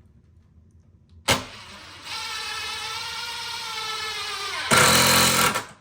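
Electric drill driving screws into the creaking bed frame. It starts with a sharp click about a second in, runs as a steady motor whine for about three seconds, then turns louder and harsher for about a second before it stops.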